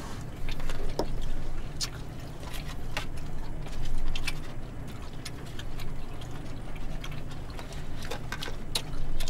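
Chopsticks and plastic spoons clicking and tapping against disposable plastic food containers at irregular intervals, with eating sounds, over a steady low hum.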